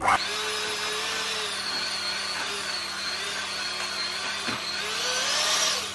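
Electric hand mixer running steadily with a wavering motor whine, its beaters working the last third of the flour into chocolate chip cookie dough. It starts sharply and cuts off near the end.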